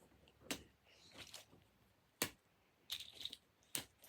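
Small toys being handled and set down, giving four light clicks and taps spread over a few seconds, with faint rustling between them.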